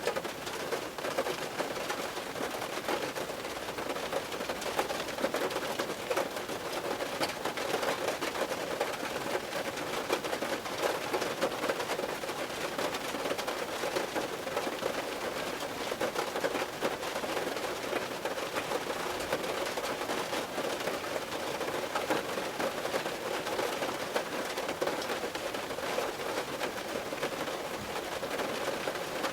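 Rain drumming on a car roof: a dense, steady patter of countless small drop impacts on the sheet-metal panel.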